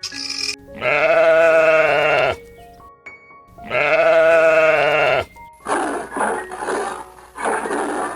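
A sheep bleating twice, two long pitched bleats each lasting about a second and a half, followed from about two-thirds of the way in by rougher, noisier animal sounds. Soft background music with held notes plays underneath.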